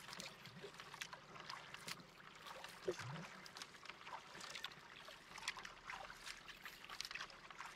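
Canoe being paddled through calm water: faint, irregular splashes and drips from the paddle, with water lapping at the hull.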